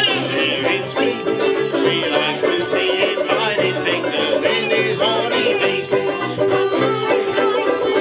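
Small folk band playing a tune together on a vellum-headed banjo, a piano accordion and smaller banjo-family plucked instruments.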